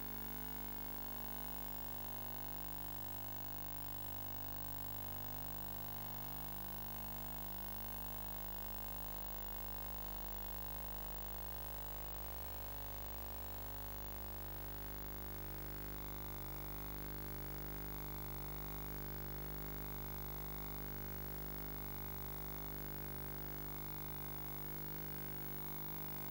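Steady electrical hum with faint hiss, unchanging throughout; no engine or tyre sound.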